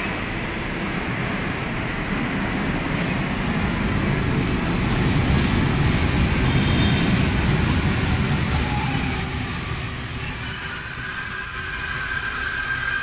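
LRT-1 fourth-generation light rail train running along the track at the platform, a rumble that builds to its loudest around the middle and then eases. Near the end a steady whine sets in.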